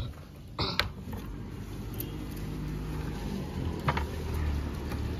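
A window shutter is pushed open with a short clatter just under a second in, followed by a steady low rumble of outdoor background that slowly grows louder.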